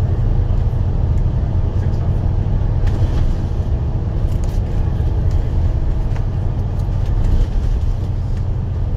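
Alexander Dennis Enviro 500 double-decker bus running at steady cruising speed, heard from inside the cabin: a continuous low engine and road rumble with a few faint clicks and rattles.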